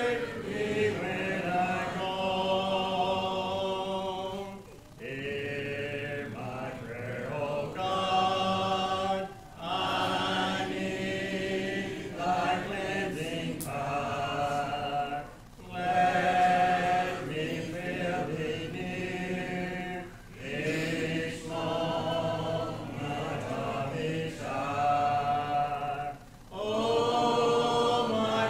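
A congregation singing a hymn a cappella, many voices without instruments. The lines come in phrases of about five seconds with brief breaks between them.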